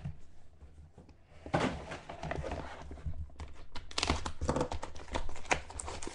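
Plastic wrapping crinkling and tearing as a sealed box of trading cards is opened, with a few light thunks of the box being handled; it starts about a second and a half in.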